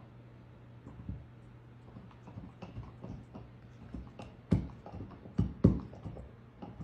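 German Shepherd squirming on its back on a shaggy rug: scattered soft thumps and rustles, the loudest a few in a row past the middle, over a steady low hum.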